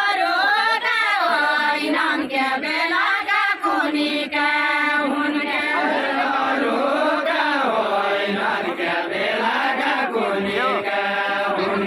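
A group of voices singing a deuda, the Far-Western Nepali folk song sung by dancers linked arm in arm, the voices together on one melody that rises and falls without a break.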